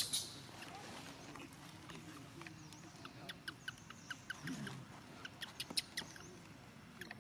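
Short, high-pitched animal squeaks and chirps, bunched in a quick run from about three to six seconds in, with a sharp click at the very start.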